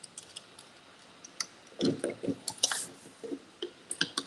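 Scattered small clicks, taps and scrapes of plastic parts and tools being handled while taking apart a toy RC car.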